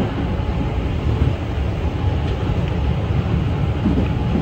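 Kintetsu electric train running along the track, heard from inside the front car: a steady rumble of wheels on rail and running gear.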